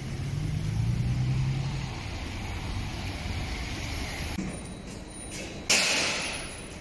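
A Bentley Continental GT's engine drones low as the car pulls away on a wet road, over general traffic noise. Near the end a sudden loud hiss breaks in and dies away over about a second.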